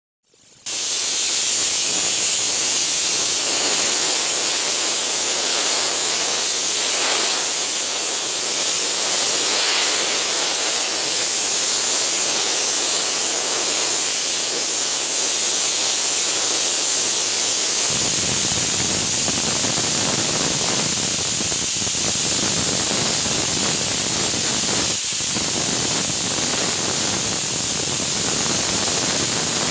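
A steam cleaner's wand jetting hot steam in a loud, steady hiss that starts about half a second in. A deeper rumble joins the hiss about halfway through.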